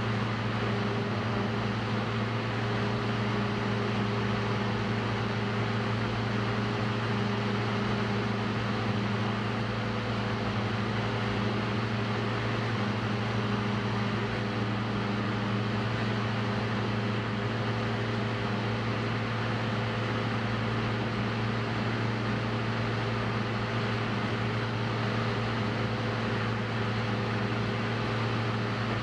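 Diesel Cessna 172's engine and propeller running steadily, heard inside the cockpit as a constant drone with a deep hum and higher tones over it.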